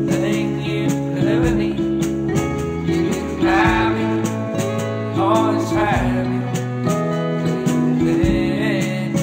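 A band's song playing: held guitar chords over bass and drums, with a wavering lead melody line above them.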